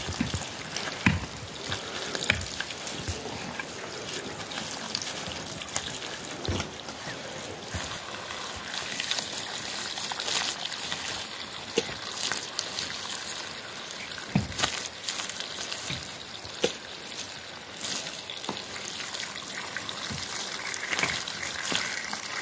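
Wet mud being mixed and kneaded by hand on the ground: watery squelching with a steady trickle and scattered short wet slaps and clicks.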